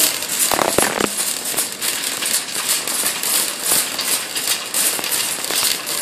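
Crackling and rustling handling noise on a phone microphone, dense with many small clicks, with a couple of low knocks about a second in.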